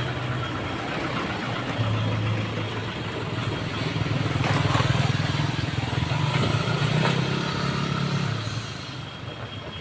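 Heavy truck engine running with a low drone that grows louder from about four seconds in and fades away near the end, over a noisy rattle.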